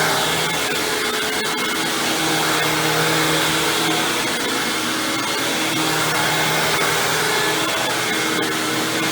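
Hoover WindTunnel Supreme upright vacuum cleaner running, its chevron brush roll spinning. The motor gives a loud, steady whine, and a lower hum swells and fades every few seconds.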